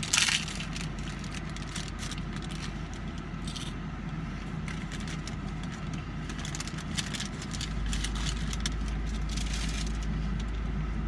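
A bite into a crunchy hard-shell taco, then chewing heard as a run of short crunches and clicks, over the steady hum of a car's engine idling. The low hum gets louder about eight seconds in.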